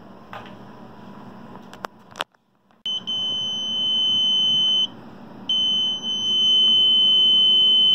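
A Prime DL369 multimeter's continuity beeper sounding a steady high beep while its probes touch the black and red leads of a water pump motor's winding, which reads only a few ohms. A sharp click comes just before it, and the beep breaks off for about half a second midway, then sounds again.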